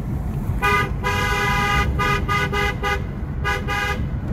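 Car horn honking: one long blast about half a second in, then a quick string of short toots on the same steady pitch, heard from inside a moving car over its road rumble.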